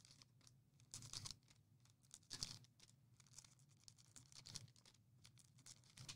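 Trading-card pack wrappers being cut and torn open, faint crinkling and ripping in several short bursts, over a low steady hum.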